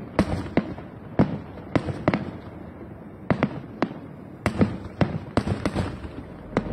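Aerial fireworks display: about twenty sharp bangs from bursting shells, coming irregularly, sometimes several in quick succession.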